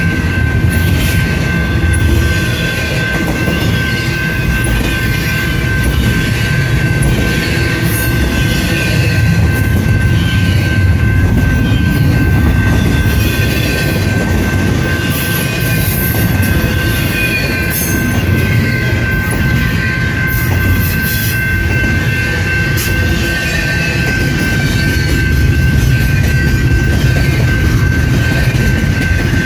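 Union Pacific freight train rolling through a grade crossing: a loud, steady rumble of railcars with wheels clattering and clanking over the rails and a steady high-pitched tone over it.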